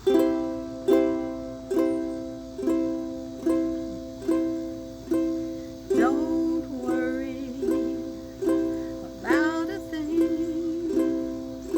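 A beginner's ukulele strummed in slow, even single strokes, a little more than one a second, each chord ringing out and fading before the next.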